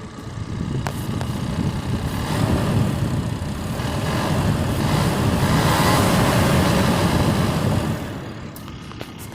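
2020 Ford Ranger's direct-injection engine running with a buzzing rattle, which swells about a second in and falls back near the end. The owner traces the rattle to the high-pressure injection pump on top of the engine.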